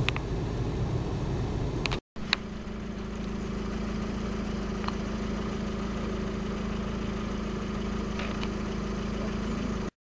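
Car engine idling, a steady low hum with a constant drone, broken by a short dropout about two seconds in.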